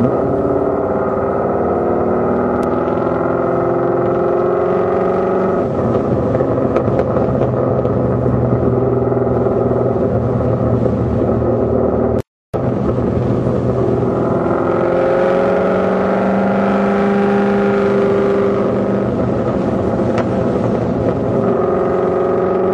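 Car engine and B&B Bullet exhaust droning steadily while cruising, its pitch slowly rising and falling with the throttle. The sound cuts out completely for a moment about halfway through.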